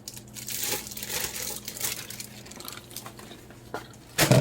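Packaging crinkling and crumpling as it is handled, with a short loud knock about four seconds in.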